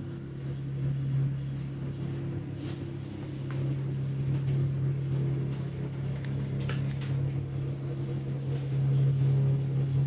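Steady low mechanical hum with a few fainter overtones, growing a little louder, with a few faint clicks a few seconds in.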